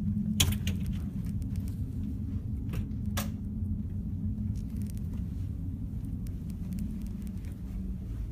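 Steady low rumble and hum of background machinery aboard a ship, with a few faint clicks and one sharper click about three seconds in.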